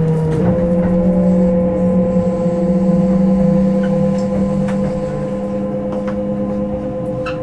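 Kintetsu 5211 series electric train motor car Mo 5261: a steady electrical hum with two held tones, getting gradually quieter.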